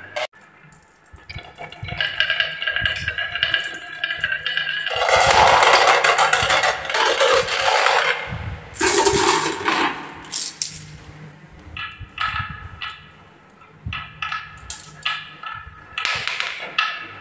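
Glass marbles rolling and clattering down a wooden wave-slope marble track. About five seconds in, a loud rushing pour of many marbles together lasts about three seconds, with another burst shortly after.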